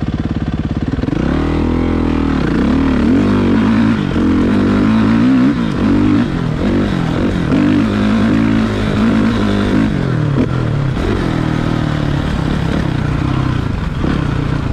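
Four-stroke motocross bike engine, running at a steady pitch, then revving up and down repeatedly from about a second in as the bike is ridden, settling to a steadier note near the end.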